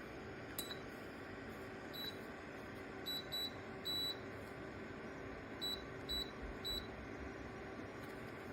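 Electric fan heater's control panel beeping as its buttons are pressed: a run of short, high single-pitch beeps, one held a little longer about four seconds in. Under the beeps the heater's fan runs with a faint steady whir.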